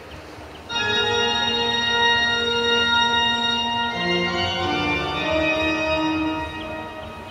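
Music of long held, organ-like chords, coming in loudly a little under a second in and moving to a new chord about four seconds in.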